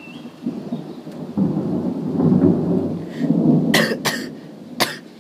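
Thunder rumbling, building to a loud peak in the middle, followed by three sharp cracks in the last second and a half.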